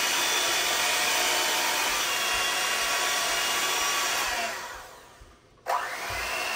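Electric hand mixer running, its beaters whirring through a bowl of cottage cheese and milk. About four and a half seconds in the whir dies away to near quiet, then the mixer starts up again a second later.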